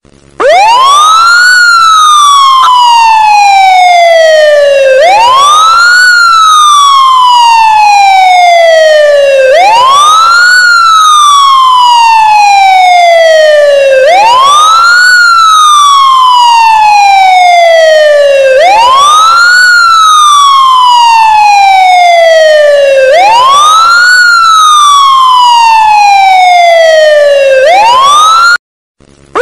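Ambulance siren sounding a loud wail: the pitch climbs quickly for about a second, then slides slowly back down over three to four seconds, repeating evenly. It cuts out for under a second near the end and starts climbing again.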